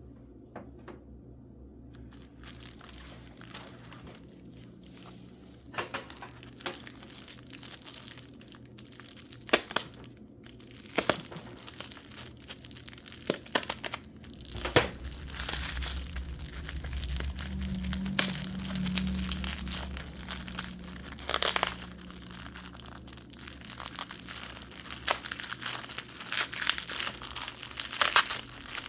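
Packing material being crumpled, crinkled and torn by hand as wrapped fluorite specimens are unpacked, with a few sharp clicks mixed in. The crinkling is sparse at first and gets busier and louder about halfway through.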